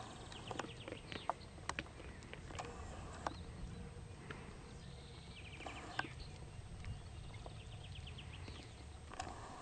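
Alpine ibex grazing: scattered sharp clicks and snaps, several in the first three seconds and one about six seconds in, as the animals crop grass and shift their hooves, over a steady low rumble. Short runs of rapid high chirping come in now and then.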